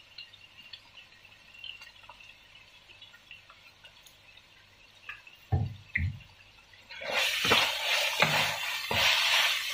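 Minced chicken stir-frying in a wok with a spatula. It is faint at first, with two knocks about five and a half seconds in. From about seven seconds in comes loud sizzling broken by repeated spatula scrapes and strikes on the wok.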